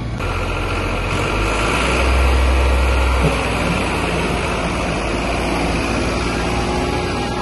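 Farmtrac 60 Powermax tractor's diesel engine running close by, with a deep rumble that swells about two seconds in and eases off a second later.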